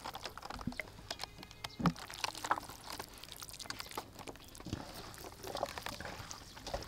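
Hands handling a moist noodle, pork and carrot stuffing and packing it into a hollowed cabbage head: soft wet squelches with many small, irregular clicks.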